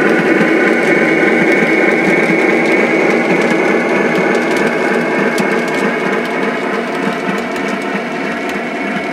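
Model railroad freight cars rolling past on the track: a steady mechanical whirring rumble of wheels on rail with light, irregular clicks, easing off slightly near the end as the last cars and caboose go by.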